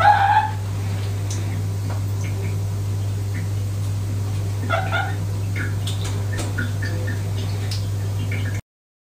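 Domestic cat meowing twice: a short meow at the start and another about five seconds in, over a steady low hum.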